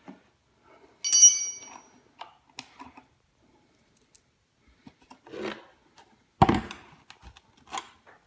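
Metal parts and tools handled while an electric ATV's wheel and axle are fitted: a ringing metallic clink about a second in, light scrapes and ticks, and a sharp heavy knock about six and a half seconds in.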